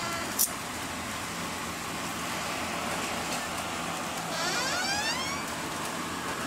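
Steady hiss of rain falling on trees, with a siren rising in pitch about four seconds in. A single sharp click sounds near the start.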